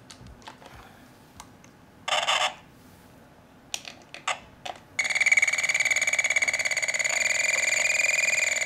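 Electronic project kit's speaker sounding a high-pitched electronic buzz with a fast flutter, starting abruptly about five seconds in as the newly wired oscillator circuit is completed and powered. Before it, a few small clicks and a short scratchy burst from wires being pushed into the kit's spring terminals.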